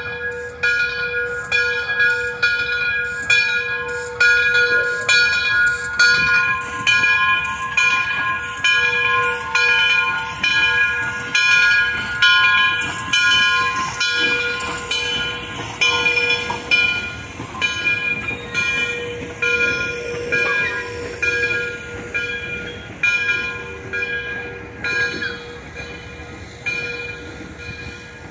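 Frisco 1630, a 2-10-0 steam locomotive, moving slowly past with its bell ringing in a steady rhythm over a hiss of steam. It fades near the end as the tender goes by.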